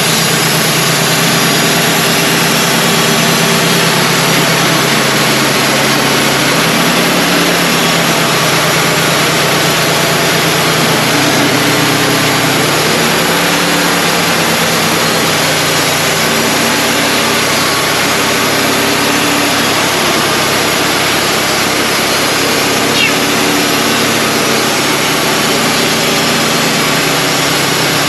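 Wood-Mizer LT35 portable band sawmill running steadily, its engine and band blade sawing through a white pine log.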